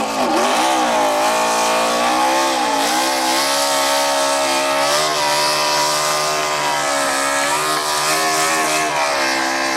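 NASCAR stock car's V8 engine held at high revs during a victory burnout, its pitch wavering up and down, over a steady hiss of spinning tyres.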